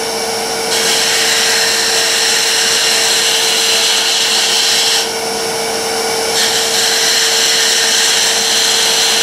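Wood lathe running with a steady motor hum while a hand-held turning tool cuts the spinning wooden blank, giving a hissing cutting noise. The cutting stops for about a second and a half near the middle, then resumes.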